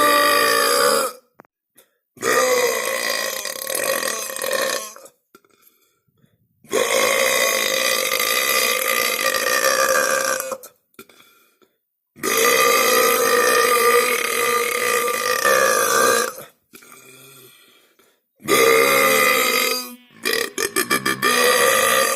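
A series of long, drawn-out human burps, each lasting a few seconds with short pauses between them, then a quick run of short, choppy burps near the end.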